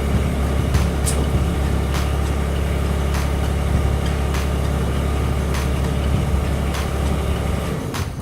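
Rural King RK19 subcompact tractor's diesel engine idling steadily.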